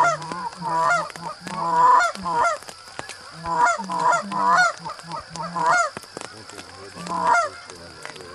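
Canada goose honks, loud and repeated in short runs, with a brief lull about three seconds in.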